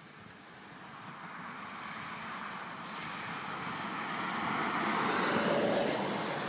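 A car passing on a nearby road: its tyre noise swells slowly, peaks near the end, then starts to fade.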